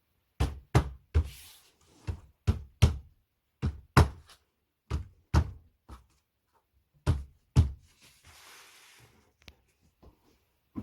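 A run of sharp knocks, about a dozen at an uneven pace with short pauses, from parts of a flat-pack bedside table being tapped into place. There is a brief scraping hiss twice between the knocks.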